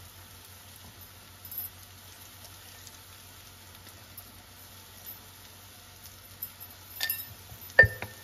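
Chopped green apple and spices frying gently in oil in a cast iron kadai, a faint steady sizzle. A few sharp clinks of a utensil come near the end, the loudest just before it finishes.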